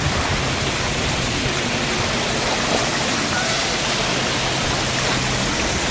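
Rushing, churning floodwater: a steady, even roar of fast muddy water.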